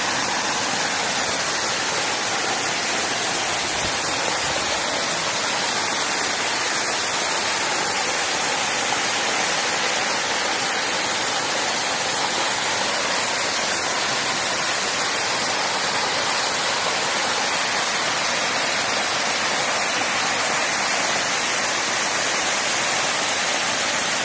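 Waterfall close by, water crashing onto rocks and a pool, a steady loud rushing hiss of falling water and spray that does not change.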